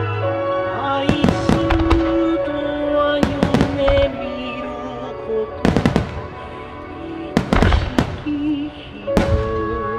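A music starmine fireworks barrage: clusters of sharp shell bursts every couple of seconds, with music playing over the loudspeakers.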